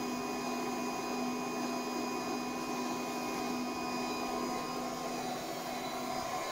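Durst RCP20 print processor running, its variable-speed DC motor turning the rollers as a sheet of paper is drawn in: a steady mechanical hum with a higher whine. The hum changes about five seconds in.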